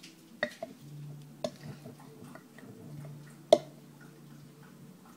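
Metal spoon clinking and scraping against the inside of a glass jar while scooping out thick Nutella. There are a few sharp clicks, and the loudest comes about three and a half seconds in.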